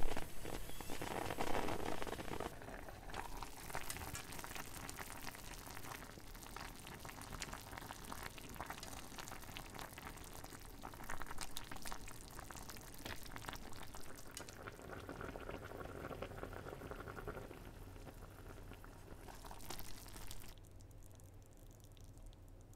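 Pot of oden broth simmering on a gas stove, bubbling with a steady crackling hiss. The bubbling is loudest in the first couple of seconds and cuts off suddenly about twenty seconds in.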